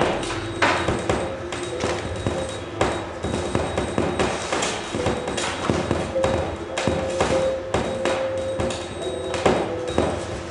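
Percussive music: irregular knocks and taps, a few a second, over held low notes that come and go.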